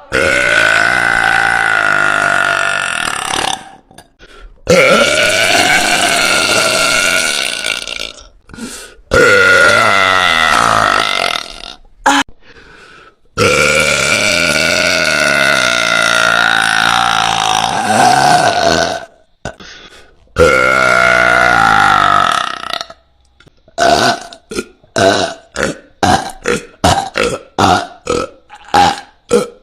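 A woman's very loud burps: five long drawn-out belches of two to five seconds each, then, from about two-thirds of the way through, a quick run of short burps at roughly two a second.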